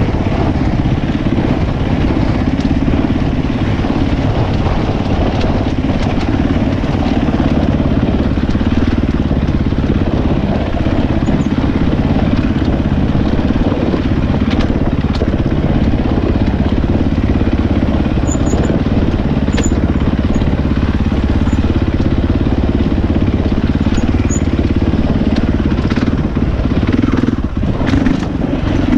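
Husqvarna 450 dirt bike's four-stroke single-cylinder engine running steadily as it is ridden along a rocky trail, with a few sharp clicks near the end.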